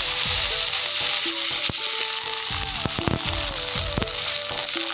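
Soaked dried fish frying whole in hot oil in a wok: a loud, steady sizzle with a few sharp pops. Background music with a simple melody plays underneath.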